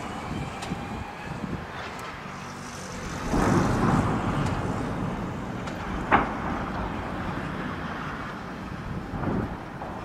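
Distant explosions from rocket-artillery shelling over a steady outdoor background rumble. A longer rolling rumble swells about three seconds in, and a single sharp crack comes about six seconds in.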